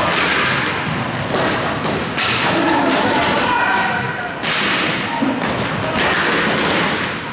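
Inline hockey play: thumps and knocks of sticks and puck against the boards, and skate wheels rolling and scraping on the court, in a large echoing hall, with faint shouts.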